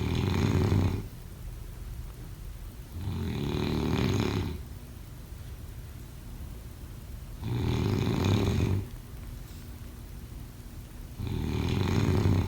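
Snoring in a slow, regular rhythm: four snores, each lasting about a second and a half, coming roughly every four seconds.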